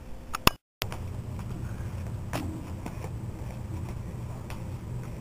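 Low steady hum of room tone with a few faint clicks, after a brief dead-silent dropout about half a second in.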